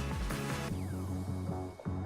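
Background music with a plucked guitar.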